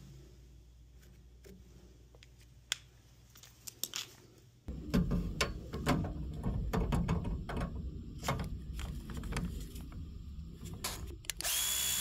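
Hands fitting a battery ProPress tool's 1/2-inch CTS jaw onto a copper press fitting: irregular plastic and metal clicks and knocks, after a few quiet seconds with only the odd tap. Near the end a steady high whir starts suddenly.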